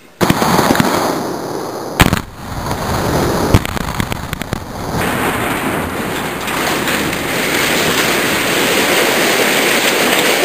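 Explosive demolition charges going off with sharp cracks and crackling as a steel-clad colliery loading bunker is brought down. The loudest bangs come about two seconds in and again about three and a half seconds in, followed by a steady dense rumbling rush of the collapsing structure and debris.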